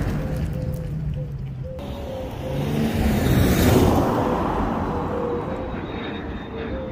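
Infiniti G37's V6 exhaust with the muffler deleted, running with a deep rumble that swells louder about three to four seconds in, then eases off.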